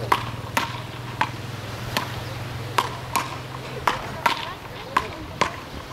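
Wooden beach rackets hitting a small ball back and forth in a rally: about nine sharp knocks, roughly half a second to a second apart. A steady low hum underneath stops about four seconds in.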